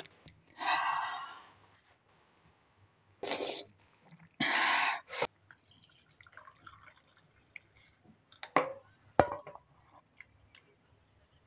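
A slurp of hot chai sipped from a steel spoon, then the tea being poured from a steel pan through a plastic strainer into cups: faint trickling and dripping with small ticks, and two sharp metal clinks in quick succession late on.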